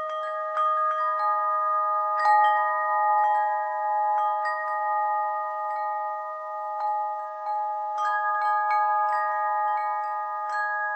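Metal chimes struck at irregular moments, each note ringing on for many seconds, so several pitched tones overlap continuously; the strongest strikes come about two seconds in and again near eight seconds.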